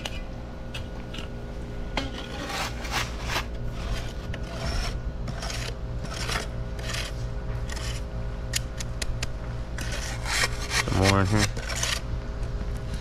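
A hand trowel and then the edge of a spirit level scraping over paver bedding sand in a series of short, irregular strokes, smoothing and levelling the sand bed. About eleven seconds in, a brief pitched sound is louder than the scraping.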